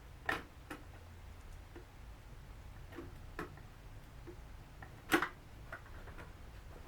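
Scattered small clicks and taps of hand tools and plastic parts as a drone's casing and connectors are worked on, the two sharpest just after the start and about five seconds in, over a low steady hum.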